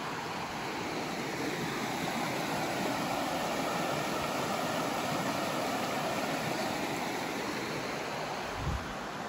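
Shallow creek water rushing over rocks in small cascades, a steady rush that grows louder after about a second and eases a little near the end. A soft low thump near the end.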